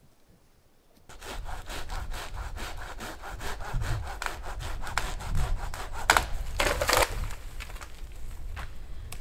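Saw cutting through dry dead wood with quick, even back-and-forth strokes, starting about a second in. Twice past the middle, louder sharp cracks of the wood stand out from the strokes.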